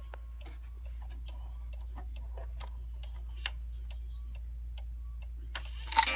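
Vintage German 30-hour cuckoo clock ticking steadily, about three ticks a second. Right at the end the works clatter and its music box starts to play as the clock hands are turned.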